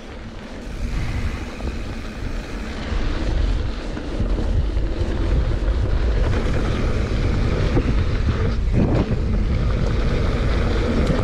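Wind buffeting the action camera's microphone and mountain bike tyres rolling over dry dirt on a fast descent, rising over the first few seconds as speed builds and then holding steady, with a few short clicks and rattles from the bike.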